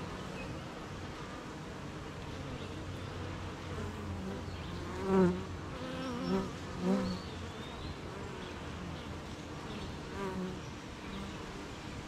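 Honeybees at a hive, their wings making a steady buzzing hum. About five to seven seconds in, three louder buzzes swell and fade, each bending in pitch.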